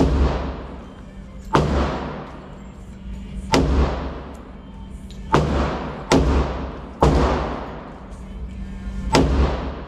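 Pistol shots from a Springfield 1911 Range Officer Target Edition, about seven shots one to two seconds apart, two of them closer together midway. Each shot rings out in a long echo off the walls of an indoor range.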